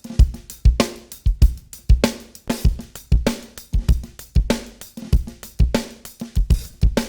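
Recorded drum kit groove: kick, snare, hi-hat and cymbals played steadily through a TK Audio Transformer saturation unit, with its germanium transformer stage added and the gain pushed. The drums sound heavily saturated, "really getting crunched up".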